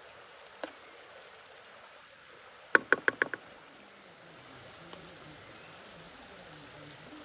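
A quick run of about six sharp knocks of hard objects about three seconds in, after a single click, over a faint steady hiss.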